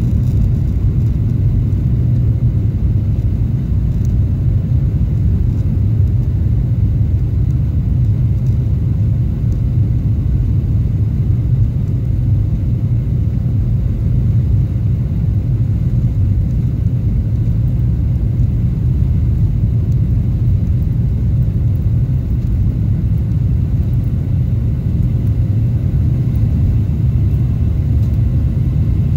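Cabin noise of a Boeing 737-700 on its takeoff roll: the CFM56-7B turbofans at takeoff thrust and the wheels on the runway make a loud, steady low rumble.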